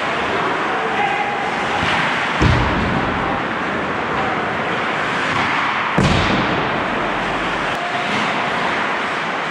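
Ice hockey play in a rink: a steady scraping of skates on the ice with distant players' shouts, broken by two sharp knocks about two and a half and six seconds in, from the puck or sticks striking the boards, the net or the goaltender.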